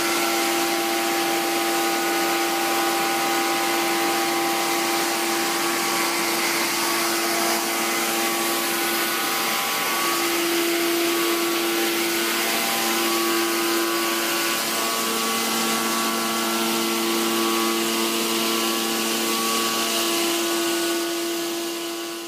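Pneumatic vacuum conveyor for plastic resin running: a steady rush of air with a steady hum from its blower, fading out near the end.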